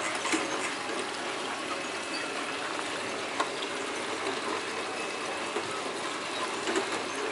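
Steady, even rushing noise with a few faint clicks.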